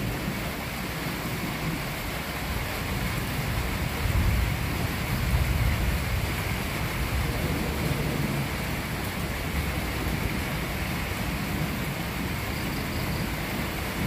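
Heavy rain falling steadily during a thunderstorm, with a low rumble of thunder swelling about four seconds in and rolling on for a few seconds.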